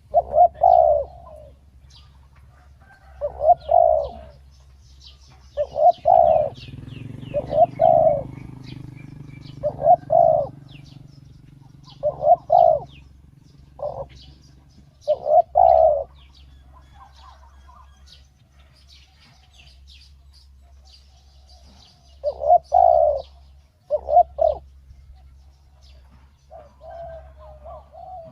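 Spotted doves cooing: short repeated coo phrases every two to three seconds, with a pause of several seconds in the middle. Small birds chirp faintly and high in the background.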